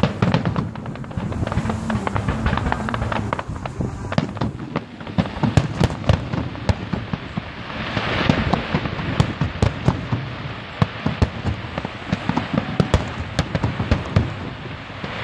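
Aerial fireworks bursting overhead, with rapid crackling pops throughout and a hissing, crackling swell about eight seconds in as large gold-and-white crackle shells break.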